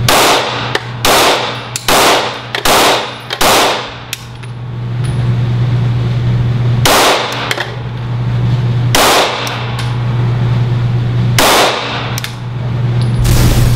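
A 9mm semi-automatic pistol fired at an indoor range, the shots echoing off the range walls: five in quick succession over the first three and a half seconds, then single shots about every two seconds. A steady low hum runs underneath.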